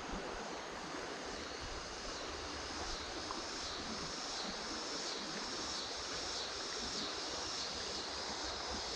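Shallow creek water running steadily over rocks. A high pulsing drone rises and falls evenly above it from about three seconds in.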